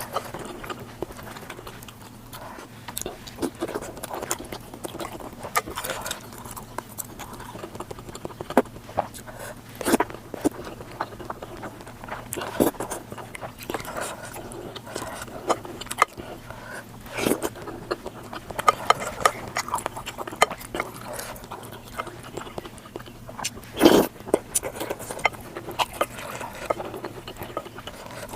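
Close-miked eating sounds sped up to double speed: chewing, biting and lip-smacking, with many short sharp clicks and crunches scattered through, the loudest about 24 seconds in.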